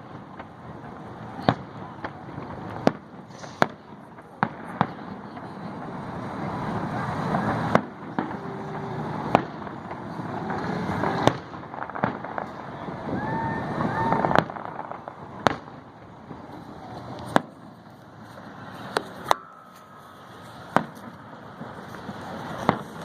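Aerial fireworks display: sharp bangs of shells bursting, one every one to two seconds, over a wash of noise that swells and fades between them.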